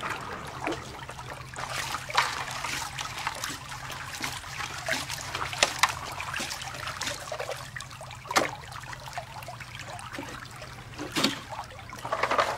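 Water trickling and splashing as a Bazooka gold sluice is rinsed out into a plastic gold pan in a creek, with a few sharper splashes along the way.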